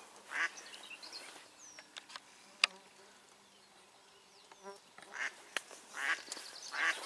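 Live decoy hen duck quacking: a couple of harsh quacks near the start, then a run of them in the last two seconds, calling to bring in drakes. A single sharp click sounds about two and a half seconds in.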